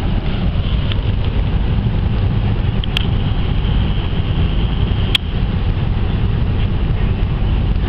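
A ferry's engines running as it comes in to the berth, a steady deep rumble with a thin whine above it, mixed with wind buffeting the microphone. Two sharp clicks come about three and five seconds in.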